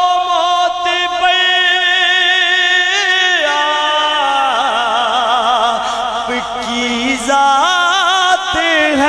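A man singing a devotional naat at a microphone, amplified: he holds one long note for about three seconds, then sings a wavering, ornamented line, and takes up another held note near the end.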